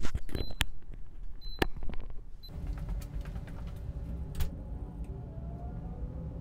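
UV-C sanitizer lamp giving its warning beeps, short high beeps about once a second, which signal that the room must be vacated while it disinfects. A few sharp knocks come with them. The beeps and knocks stop about two seconds in and give way to a steady low rumble.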